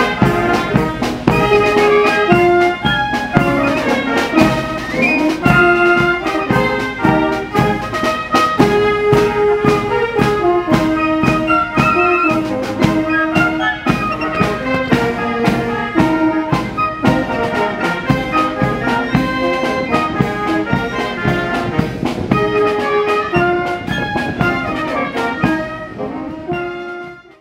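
Military brass band playing, with trumpets, trombones and saxophones over a steady drum beat. The music fades out near the end.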